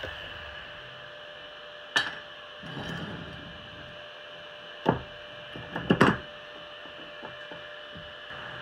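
Lengths of square steel tube being set down and fitted together on a plywood workbench: a sharp knock about two seconds in, another near the middle, and a quick cluster of knocks a second later, over a steady hum.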